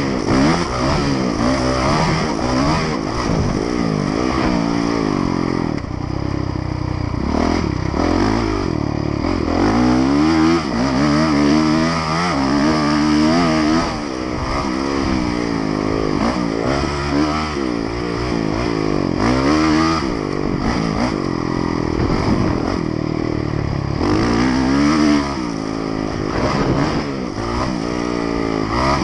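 Honda motocross bike's engine, heard from on the bike, revving up and dropping back over and over while raced around a dirt track: the pitch climbs through each gear, then falls off at shifts and when the throttle is eased.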